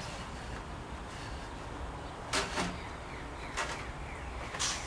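Ramrod sliding in the PVC barrel of a potato cannon, packing the foil projectile down: three short scraping swishes over a low background rumble.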